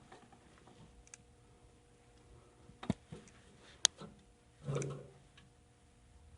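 A few sharp clicks and taps, one about three seconds in and a louder one about a second later, then a short low rumble near the five-second mark, from hands working on a generator engine that won't start; the engine itself is not running.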